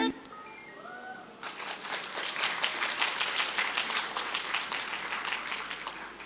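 Audience applauding, starting about a second and a half in and fading out near the end, after a few faint high voices at the start.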